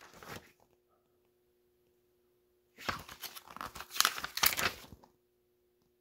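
Pages of a small paper user-manual booklet being turned and handled: a brief rustle at the start, then a denser paper rustling of about two seconds starting near three seconds in.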